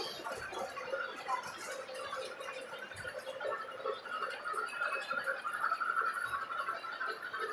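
Model trains running on the layout: a steady whir of small electric locomotive motors with faint clicking of wheels over the rail joints.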